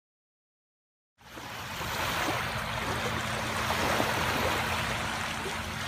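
Near silence for about a second, then small waves lapping on a sandy shoreline fade in as a steady wash of water noise.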